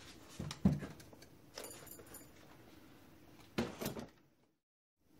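A few soft thumps and shuffling handling noises over a faint steady hum, the loudest thump about half a second in; the sound cuts out to dead silence near the end.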